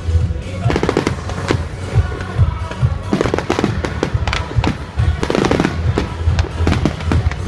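Fireworks show: aerial shells bursting in a rapid, irregular string of deep booms and sharp cracks, with music playing underneath.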